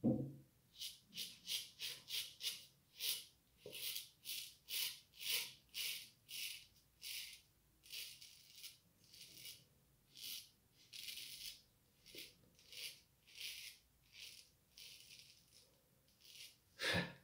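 Antoine Touzet frameback straight razor, made around 1900, scraping through lathered stubble in short rasping strokes, about two a second at first and slower later on, with one louder scrape near the end.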